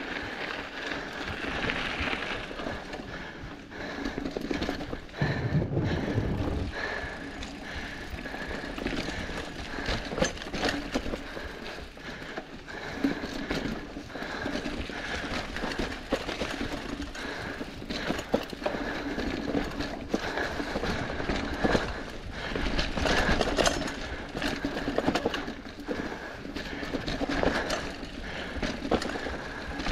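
Mountain bike rolling over a leaf-covered dirt trail: the tyres rustle through dry leaves and the bike rattles and knocks over bumps and roots, with a steady run of small clicks and knocks throughout.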